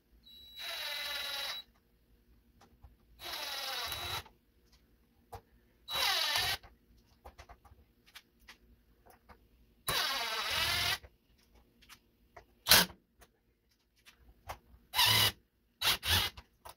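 Cordless drill-driver run in four short bursts of about a second each, its motor pitch rising and falling with each burst, as screws are driven in; a few sharp clicks follow near the end.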